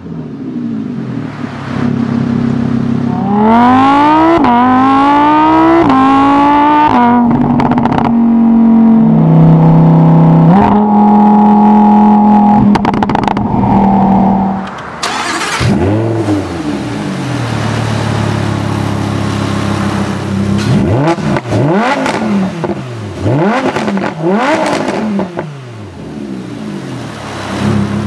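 2015 Lamborghini Huracán LP610-4's 5.2-litre V10 through the optional racing exhaust with the valves open in Sport mode. It is revved at a standstill, climbing in pitch in steps and held at high revs for several seconds. After a drop, it runs through a series of rises and falls in pitch as the car drives on the road.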